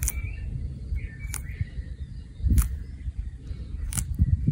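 A tortoise biting into a large green leaf: four crisp crunching snaps a little over a second apart, over a low rumble.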